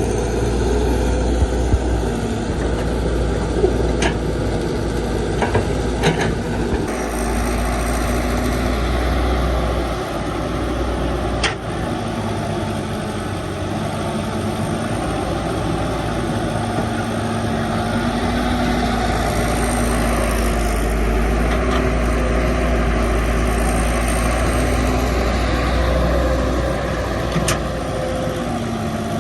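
Excavator's diesel engine running steadily under light load, its pitch shifting a little as the hydraulics work, with a few short sharp knocks.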